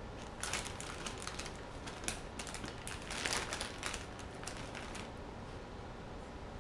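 Irregular light clicks and rustles of a handheld phone being handled close to its microphone, coming thickest through the middle, over a steady low hiss.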